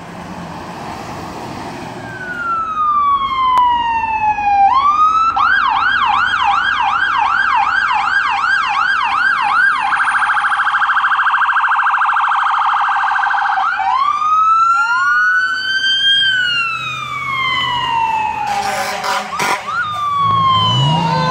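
Fire truck's electronic siren cycling through its tones: a slow wail, then a fast yelp of about two sweeps a second from about five seconds in, then a very rapid warble for a few seconds, then back to a slow rising and falling wail.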